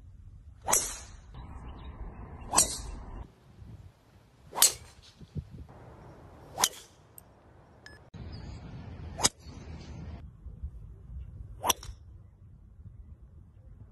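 Golf drivers striking balls off the tee: six sharp metallic cracks with a brief ring, about two seconds apart.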